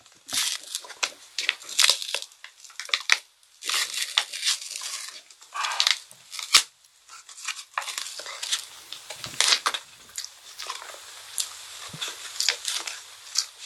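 Paper and foil wrapper of a Gugu Cone ice-cream cone crinkling and tearing as it is handled and peeled, in irregular crackly bursts.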